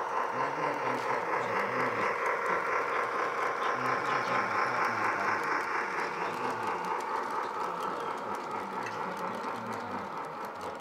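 Garden-railway model train, a diesel switcher pulling a line of freight cars, running past close by with a steady whine and the clicking rattle of its wheels on the track. It gets gradually quieter in the second half as it moves away.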